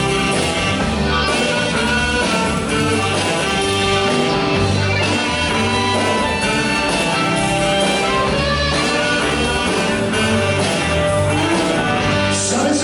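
Live band playing an instrumental passage of a rock song, with guitar.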